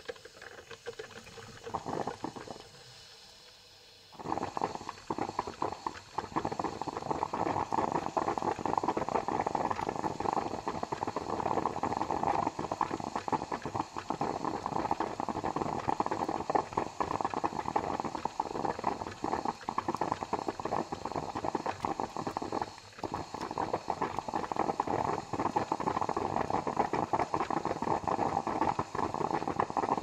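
Coffee maker brewing: a few short bubbling bursts, then from about four seconds in a steady, dense, rapid bubbling and sputtering of hot water, with a brief lull about three-quarters of the way through.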